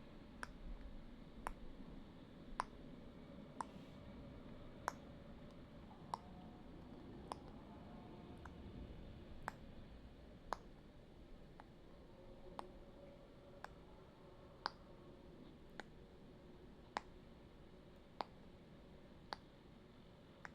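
Faint, sharp clicks evenly spaced about once a second, over a low steady background hum.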